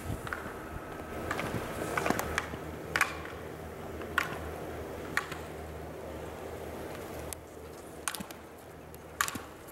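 Slalom racer's skis scraping and carving over packed snow, with a series of sharp clacks roughly once a second as the slalom gate poles are struck.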